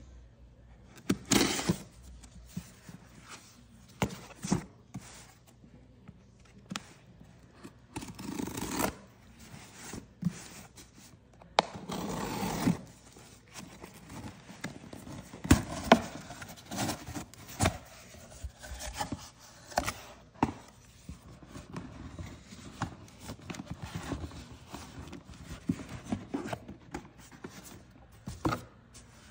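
Packing tape on a cardboard shipping box being slit with a knife in a few long scraping strokes, then the box flaps pulled open and the cardboard handled, with short knocks, scrapes and rustles.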